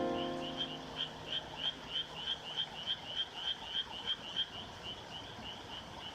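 Frogs calling in a rapid repeating series, about three calls a second, over a soft piano chord that is struck at the start and rings out for a few seconds.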